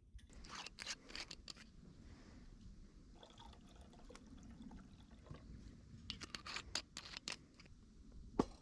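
Light clicks and scrapes of objects being handled, in two bunches: one near the start and another about six seconds in.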